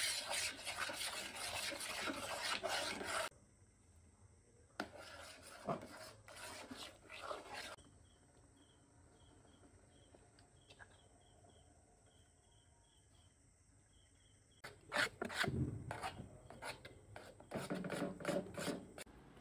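Metal spoon stirring and scraping against the side and bottom of an aluminium pot of milk and custard mixture. It comes in three spells: one at the start, one from about five to eight seconds in, and one near the end, with quiet between.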